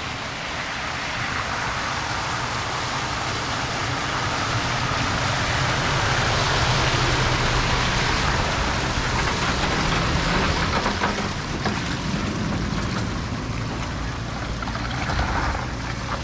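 Toyota Fortuner's 2.8 diesel engine pulling a loaded car trailer through a shallow creek causeway, with the rush of water thrown up by the tyres. The sound grows louder as the vehicle draws level around the middle, then eases off.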